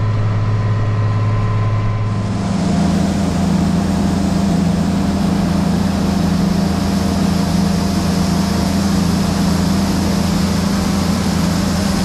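A steady engine drone inside a tractor cab, cut off about two seconds in by a Case IH 2388 combine running while its unloading auger pours shelled corn into a grain truck: a loud, even engine hum under a steady hiss of grain.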